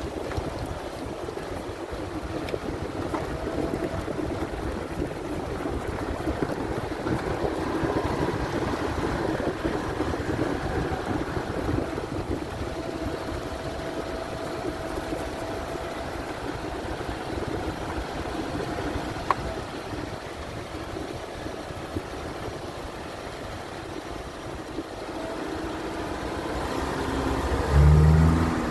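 Subaru Impreza's flat-four engine running with tyre and road noise while driving. A louder, uneven low rumble comes near the end.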